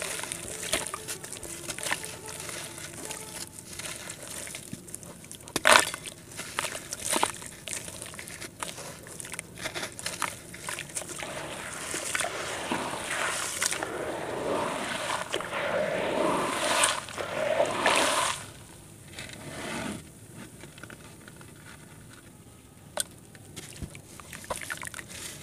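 Hands crumbling and squeezing lumps of gritty red dirt in a tub of muddy water: wet sloshing and dribbling with many small crackles. There is one sharp, loud crunch about six seconds in, and a busier stretch of sloshing and crumbling past the middle before it quietens.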